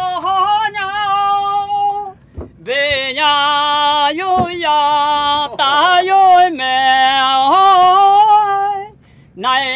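An elderly man singing a Vietnamese-language folk song of the Gin (Jing) people unaccompanied, in long held notes with short breaks between phrases.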